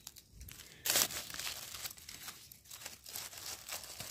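Dry fallen leaves rustling and crunching as a gloved hand works through the leaf litter, picking mushrooms, with one louder crunch about a second in.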